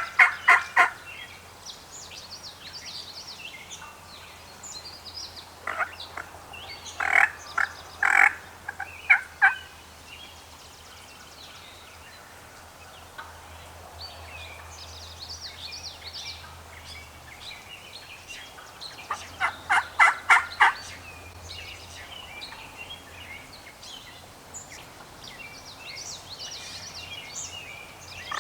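Wild turkey gobblers gobbling: several loud, rattling gobbles in bursts at the start, about a quarter of the way in and again about two-thirds through. Small songbirds chirp faintly between the gobbles.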